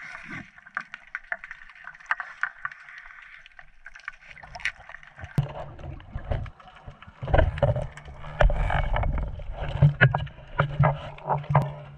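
Underwater sound picked up through a GoPro's housing: crackling small clicks over a hiss of water. About five seconds in, a louder low rumble of moving water begins, with sharp knocks, as the camera is swung through the water.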